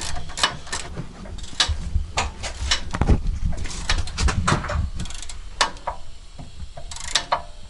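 Irregular metallic clicks and knocks of hand tools working on the nut of a rear sway bar link.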